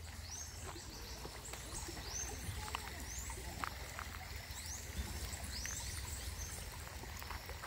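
A bird calling over and over, a short high note that swoops up and falls back, about once a second, over a steady low rumble of wind on the microphone.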